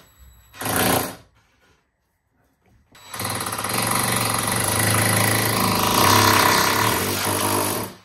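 Cordless drill drilling into the wall: a short burst about half a second in, then, after a pause, about five seconds of continuous drilling with a steady motor whine that stops abruptly.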